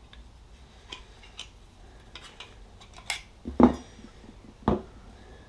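Light clicks and clinks from a backup camera and small metal mounting brackets being handled and set down on a wooden workbench. A few louder knocks come a little after three seconds in and again near the end.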